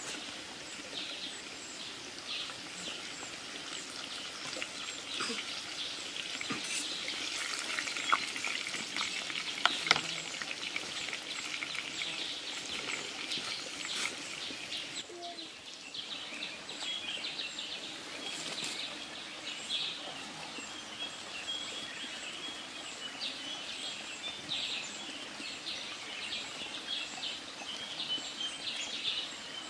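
Outdoor ambience with birds calling over a steady high hiss, broken by scattered small clicks and crackles and two sharp clicks about eight and ten seconds in. A rapid ticking call runs through the last few seconds.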